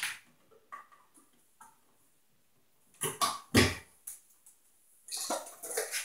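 Wire strippers cutting and pulling insulation off electrical wire ends: short scraping bursts about three seconds in and again near the end.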